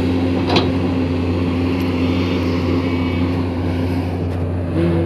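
Komatsu PC210 excavator's diesel engine running steadily at a constant speed, a deep even drone, with one brief knock about half a second in.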